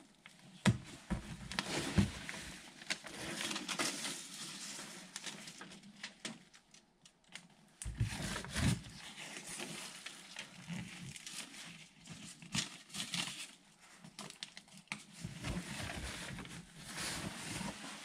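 Irregular handling noise from hands-on work: rustling and crinkling with scattered sharp knocks, a few in the first two seconds and heavier clunks about eight seconds in.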